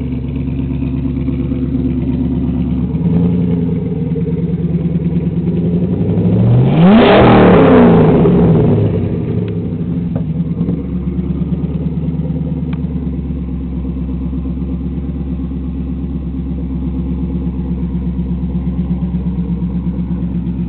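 LS1 V8 of a Camaro breathing through an SLP cat-back exhaust, idling with a steady burble. About seven seconds in it is revved hard once, the pitch climbing sharply and falling back to idle, after a lighter blip about three seconds in.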